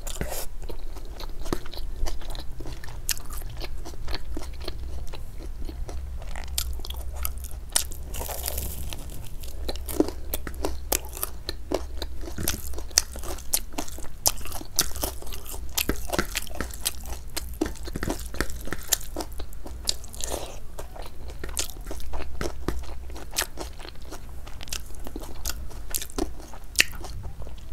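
Close-miked chewing and biting of a rice-and-curry meal eaten by hand, with many sharp crunches and wet mouth clicks.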